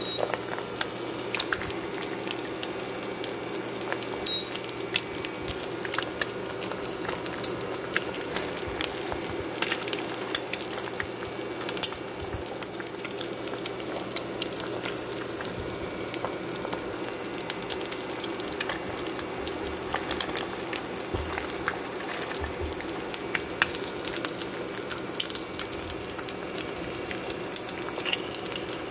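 Eggs frying in a stainless steel pan: a steady sizzle with frequent small pops and crackles.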